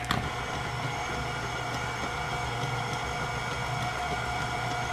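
KitchenAid tilt-head stand mixer running steadily, its motor humming as it beats frosting in the steel bowl.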